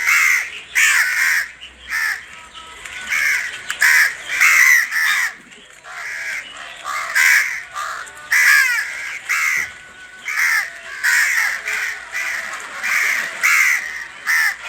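Birds calling: a run of short, harsh, repeated calls, one or two a second.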